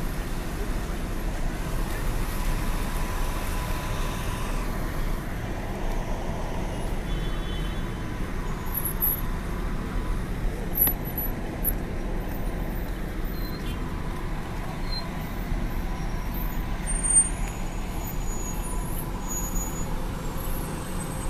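Street traffic: a steady rumble of car engines idling and moving in dense, slow taxi traffic, with a couple of brief louder moments late on.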